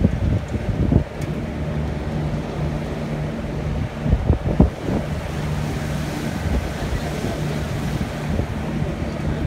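Sightseeing tour boat's engine droning steadily, with water rushing past the hull and wind buffeting the microphone in gusts, the strongest about four seconds in.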